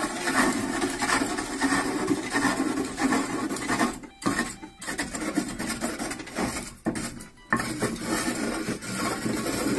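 A chisel scraping and cutting a wooden log spinning on a lathe, turning the shell of a madal drum: a continuous rough scraping noise, broken by a few short pauses about four and seven seconds in.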